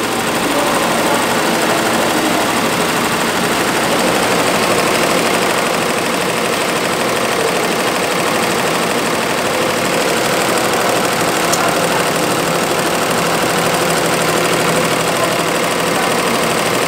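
Feiya multi-needle computerized embroidery machine stitching, a steady, fast mechanical clatter of needle strokes.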